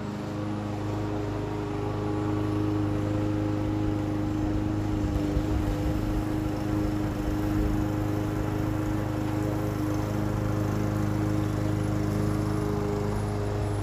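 Lawn mower running steadily, a constant engine drone that gets a little louder about two seconds in.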